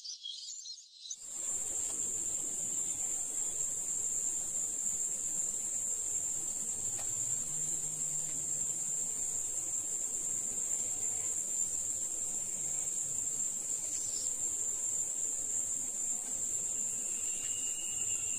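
Continuous high-pitched insect chorus, a steady unbroken trill of crickets or similar insects. It starts abruptly about a second in, replacing a brief patch of more varied chirping.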